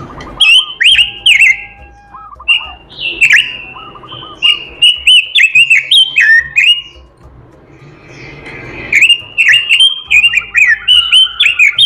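A Pekin robin (red-billed leiothrix) singing loud, rapid strings of whistled notes with quick downward sweeps and very high chirps. The song comes in two bouts, with a pause of about a second and a half in the middle.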